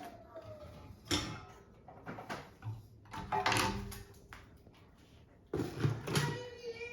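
A handful of knocks and clattering thumps, the loudest about a second in, around three and a half seconds in and near six seconds in.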